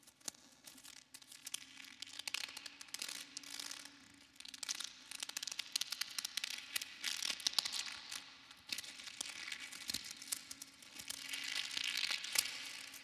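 Bundled plastic rod stick gripped in both hands and twisted, its rods grinding against each other close to a microphone with reverb: a dense crackling, scratching rustle that swells and fades in waves, loudest near the end.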